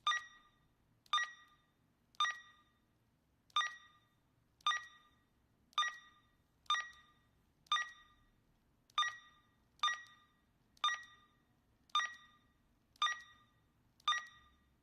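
Short electronic key beeps from the Yanton T-320 two-way radio's keypad, repeated about once a second as its menu settings are stepped through, each a quick click followed by a brief fading tone.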